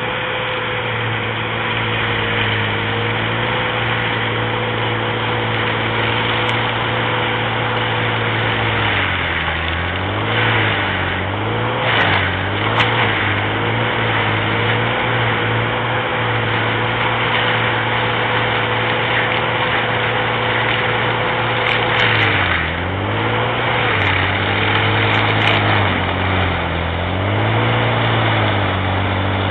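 Engine of a tracked forestry mulcher (Galotrax 300 carrier with BF 501 mulching head) running at high steady revs while the rotor grinds brush. The engine note sags and recovers three times, about nine seconds in, around twenty-two seconds and near the end, as it lugs under the load of the wood. A few short cracks come through around the first dip.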